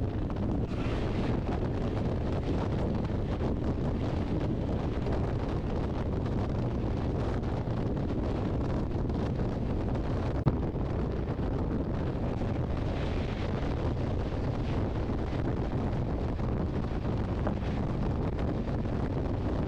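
Wind rushing over the microphone at an open coach door, over the steady running rumble of the Amrit Bharat Express passenger train at speed. There is one brief click about halfway through.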